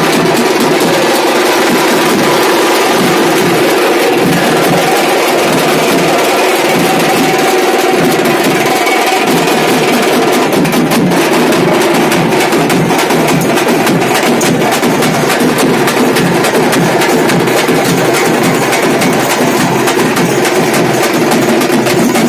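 Loud drumming by a street drum band: several stick-beaten double-headed drums and a hand-held frame drum playing together in a fast, continuous rhythm.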